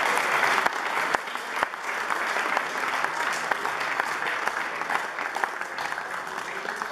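Crowd applause, many hands clapping, easing off gradually.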